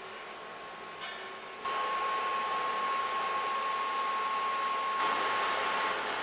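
Steady factory machinery noise: an even rushing hiss like a blower, with a steady high hum running through it, growing louder about a second and a half in.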